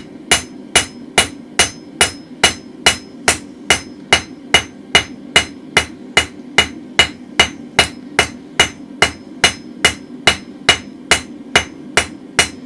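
Hand hammer striking hot mild steel on an anvil in a steady rhythm, about two blows a second, each with a short ring, drawing the end of a round drift out into a round taper.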